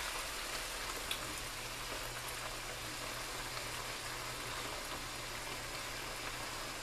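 Skillet of sliced sausage, onions and garlic sizzling steadily under tomato pasta sauce that has just been poured over it, with one faint click about a second in.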